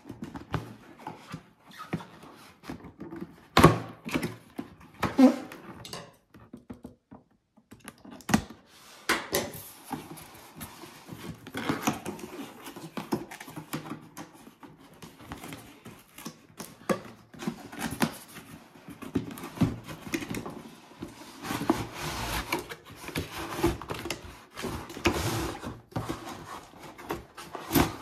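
Cardboard toy box being handled on a wooden table: rustling, tapping and scraping as the box is opened and the inner cardboard tray slides out, with two sharp knocks in the first third.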